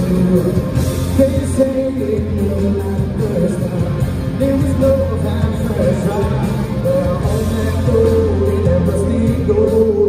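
Live country-rock band playing loudly: electric guitars and a drum kit, with a male voice singing.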